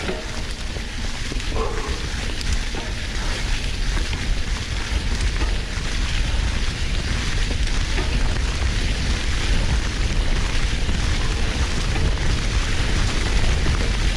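Wind rushing over the microphone with a low rumble, over the crackle and hiss of a Canyon Lux Trail mountain bike's tyres rolling through dry fallen leaves at speed. It grows steadily louder as the bike gathers pace.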